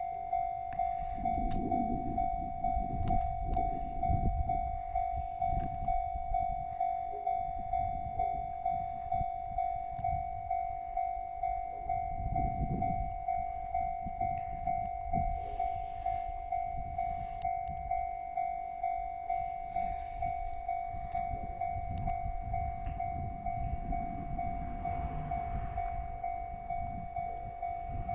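Japanese level-crossing alarm ringing steadily, an electronic ding repeating a little more than once a second, while a train rumbles past over the crossing, its rumble swelling and fading several times.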